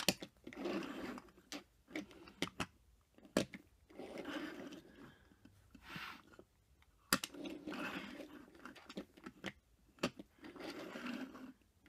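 Small die-cast metal toy cars being turned around and pushed across a wooden tabletop: their little wheels rolling and scraping in about four short stretches, with sharp clicks and taps of the cars against the wood in between.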